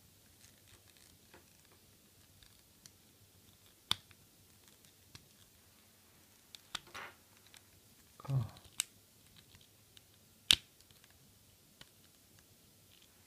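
Hard plastic parts of a G1 Seacon Transformers figure clicking and tapping as they are handled and prised at, working at its really stiff arms. The clicks are sparse and light, with two sharper snaps, one a little before 4 s and one about 10.5 s in.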